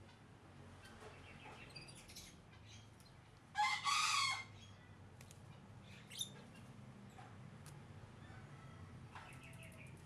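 Caged plaintive cuckoo fluttering its wings in a bamboo cage, with faint chirps and clicks. About three and a half seconds in comes one loud, harsh bird squawk lasting under a second.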